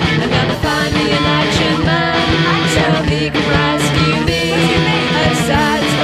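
Recorded noise-rock / synth-punk song playing loud, with a fast, steady drum beat under a dense wall of instruments.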